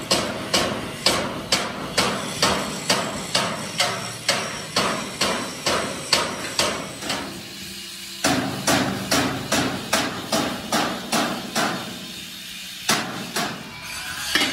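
Hammer blows on metal, struck by hand at a steady pace of about three a second, with short breaks about halfway through and again near the end.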